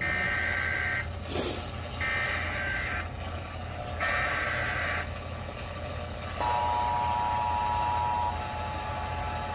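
Emergency Alert System SAME header, three short buzzy data bursts about a second apart, followed about six and a half seconds in by the steady two-tone EAS attention signal.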